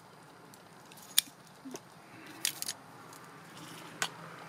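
A few scattered sharp clicks and knocks from handling a ratcheting PVC pipe cutter and cut lengths of half-inch PVC pipe on concrete. There is a single click about a second in, a quick group of clicks about halfway, and one more near the end as the cutter's jaws are opened.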